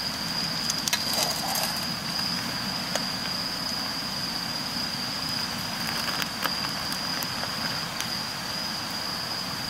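Firewood burning in a small folding campfire grill: a steady rush with a few sharp crackles. A steady, high insect trill runs underneath.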